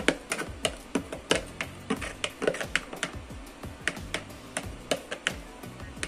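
Wooden spoon scraping and knocking against a plastic bowl and a frying pan as a runny egg-and-potato tortilla mixture is scraped into the pan: a run of irregular clicks and taps, several a second. Background music plays underneath.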